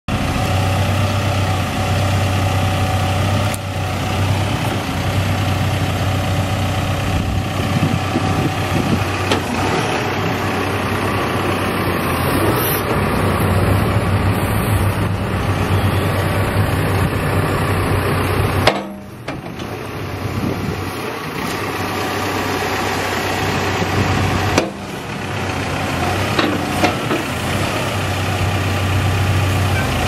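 Caterpillar 420F backhoe loader's four-cylinder diesel engine running at a steady low idle. Twice the sound drops sharply after a click, and the low hum thins out for a few seconds before coming back.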